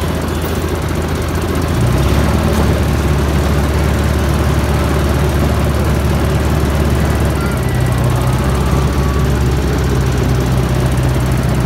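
Small engine of a ride-on miniature train locomotive running steadily as the train travels along the track, its note shifting about two seconds in and again past the middle.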